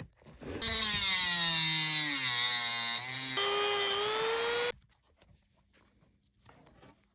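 Dremel rotary tool with a small cutting wheel cutting away a piece of the Mustang seat's lumbar mechanism. It starts about half a second in, and its pitch sinks as it bogs down under the cut. A little past three seconds the pitch jumps up as it spins more freely, and it shuts off abruptly at about four and a half seconds.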